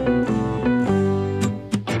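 Instrumental background music: a tune of held notes that change pitch every fraction of a second, giving way to short, sharply struck notes near the end.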